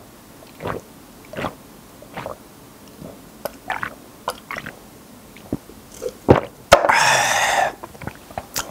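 A person gulping a drink down in a series of soft swallows, about one every 0.7 s, then a sharp click and a loud breathy exhale lasting almost a second once the drink is finished.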